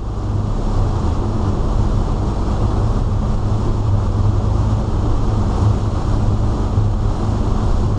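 A 2000 Sea Ray 340 cruiser's inboard engines drone steadily under way, with a rush of wind and water as the hull runs through rough lake chop. The sound grows louder in the first second, then holds steady.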